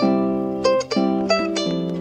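Background music: a light tune on a plucked string instrument, notes and chords plucked a few times a second.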